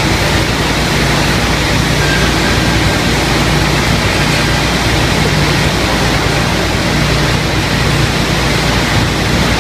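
Pallet board ripping saw machine running steadily, a loud even rush of noise over a low motor hum.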